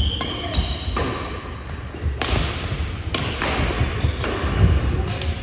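Badminton doubles rally: several sharp smacks of rackets hitting the shuttlecock, about one a second, echoing in a large hall, with short squeaks of court shoes on the wooden floor and the thud of footfalls.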